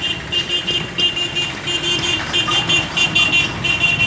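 Screw-type bearing puller being turned by hand on a ceiling fan motor's bearing, its metal squeaking in short repeated squeals, several a second, over a low background hum.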